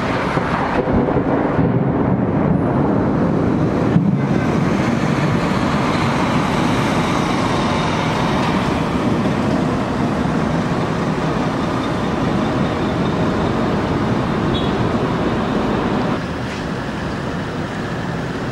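Thunder rolling over the city, a long unbroken rumble with a short sharper crack about four seconds in, dropping a little in level near the end.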